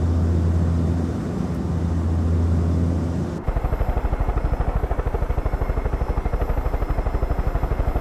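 Helicopter in flight: a steady low engine drone, then an abrupt change about three and a half seconds in to a fast, even chop of rotor blades, about ten beats a second.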